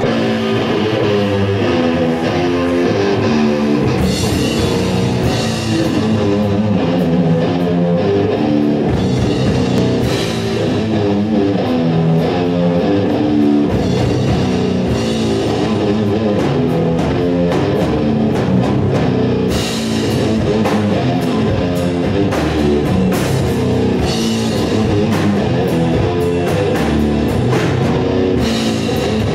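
Live rock band playing heavy rock: electric guitars and bass riffing over a drum kit, with cymbals coming in about four seconds in.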